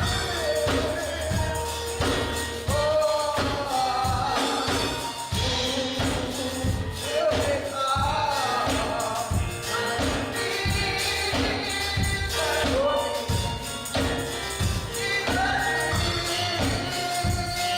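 Gospel song: a choir singing over band accompaniment with a steady bass line and percussion.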